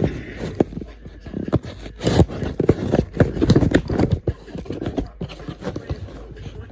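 Packaging and parts being handled: a run of irregular knocks and clicks with scraping between them.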